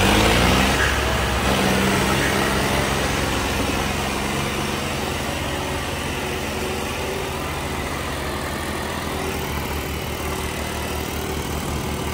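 Diesel tractor engines working hard in a tractor tug-of-war: they rev up at the start, then run steadily under load.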